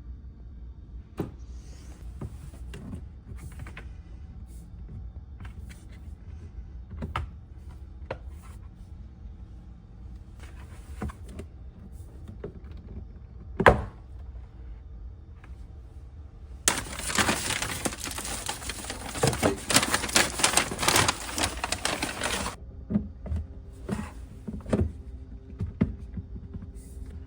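Scattered clicks and knocks of parts and tools being handled, with one sharp knock about 14 seconds in. Then comes about six seconds of loud rushing noise with clatter through it, which cuts off suddenly.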